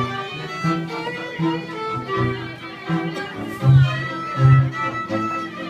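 Polish highlander string band of two fiddles and a cello playing a folk tune without singing. The fiddles carry the melody over the cello's bowed low notes, which come strongly on the beat.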